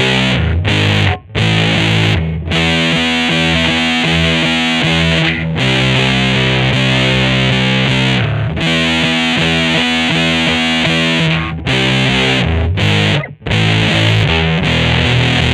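Electric guitar played through heavy distortion, sustaining thick chords that are each held a few seconds, with short breaks at the chord changes.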